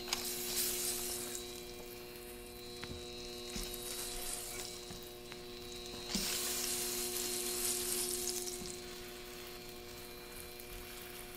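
English muffins and melted butter sizzling on a hot Vevor electric flat-top griddle as the muffins are laid down one at a time. The sizzle swells each time one goes down and is loudest about six to eight seconds in. A faint steady hum runs underneath.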